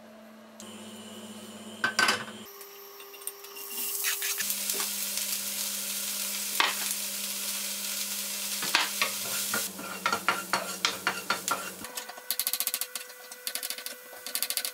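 Chopped onion sizzling in olive oil in a nonstick frying pan, stirred and scraped with a wooden spoon. Near the end there are quick knife taps on a plastic cutting board as mushrooms are sliced.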